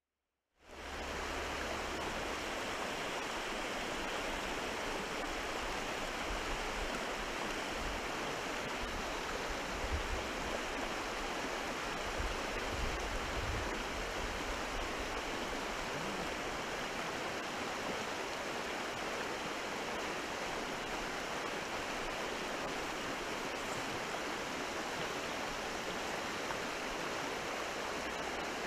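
River water rushing steadily. It cuts in abruptly after a brief silence, with a few low bumps on the microphone near the middle.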